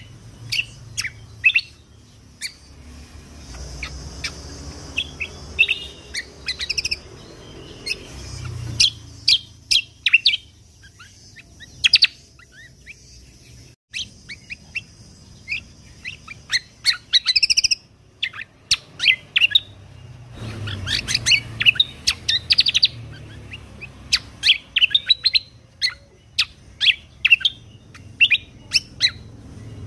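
Kecial kombo (cucak kombo) songbird singing a rapid run of sharp, high chirps and quick trills, the 'tembakan' shots used as masteran song for training contest birds. There is a short pause about halfway through, then the rapid chirping resumes.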